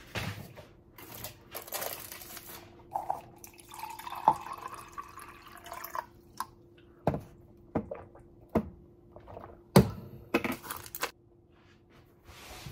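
Liquid poured from a glass pitcher into a drinking glass for a few seconds, starting about three seconds in. It is followed by several sharp clinks and knocks of the glassware being handled and set down.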